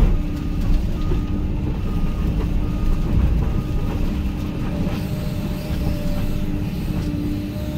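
Hyundai HX220AL excavator's diesel engine running under hydraulic load, with a sharp thump right at the start and a few lighter knocks as the crushed grain bin metal is pressed down.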